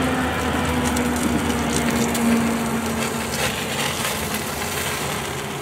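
Steak fat sizzling and crackling on a hot propane cooker, with a couple of short sharp clicks about three and a half seconds in.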